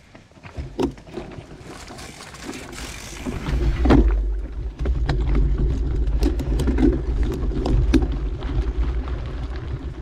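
Mountain bike rolling along a dirt trail: a low rumble of tyre and wind noise, with scattered clicks and rattles. It grows much louder about three and a half seconds in.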